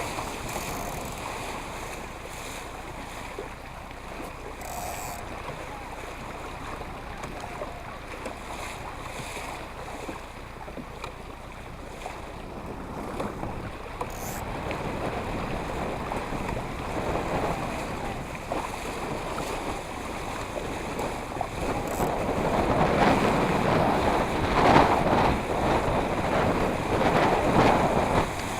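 Wind buffeting the microphone over water splashing against the hull of a Laser sailing dinghy under way, growing louder and choppier for the last several seconds.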